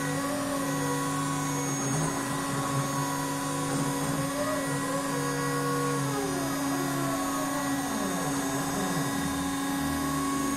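CNC router running its program without cutting: the stepper motors whine in pitches that rise and fall as the gantry and spindle carriage speed up, slow down and change direction, over a steady hum.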